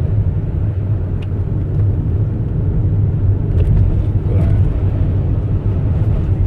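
Car being driven: a steady low road and engine rumble.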